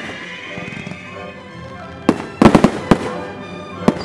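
Aerial fireworks shells bursting, with a quick cluster of sharp bangs about two seconds in and a single bang near the end, over steady background music.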